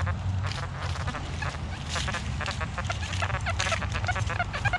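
XP Deus metal detector with an X35 coil giving choppy, honking target tones as it is swept over iron and trash, the broken signal of a big iron target.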